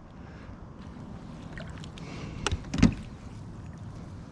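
Knocks against a boat while a freshly landed bass and a clump of lake weeds are handled, two sharp ones about two and a half seconds in, over a steady low hum.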